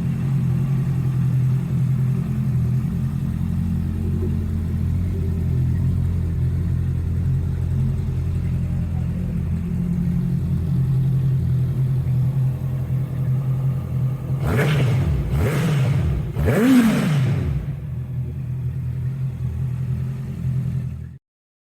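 Honda CB650F's inline-four engine idling through an aftermarket carbon exhaust, then blipped three times in quick succession, the last blip the loudest.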